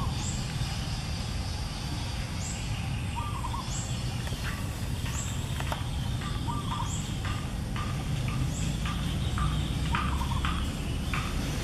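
Outdoor ambience: small birds chirping repeatedly, short high calls about once a second, over a steady low rumble.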